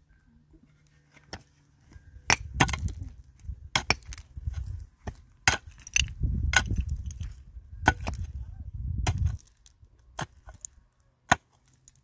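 Wood being struck and broken: about a dozen sharp knocks and cracks at uneven intervals, over a low rumble from about two to nine seconds in.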